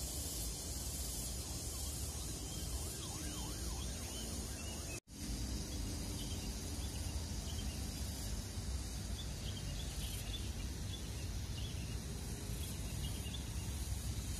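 Steady outdoor background noise with a strong low rumble and faint, short high chirps. The sound drops out for a split second about five seconds in, where the footage is cut.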